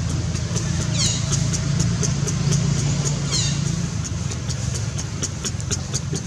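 Two short, high squeaks from a macaque, each falling steeply in pitch, about a second in and again a little past three seconds. They sit over a steady low rumble, with scattered faint ticks.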